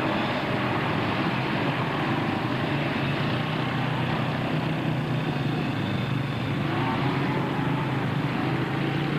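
Quad (ATV) engines running, a steady drone whose pitch wavers slightly and shifts about six and a half seconds in.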